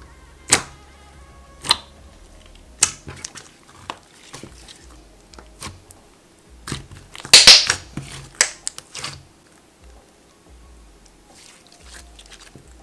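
Thick, rubbery butter slime being pressed and folded by hand, giving sharp pops about a second apart at first, then a louder burst of crackling around seven seconds in.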